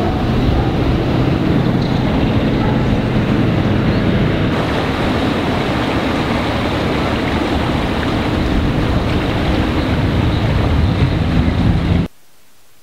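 Flooded river rushing past, a steady loud rush of moving water. It cuts off suddenly to a faint hiss about twelve seconds in.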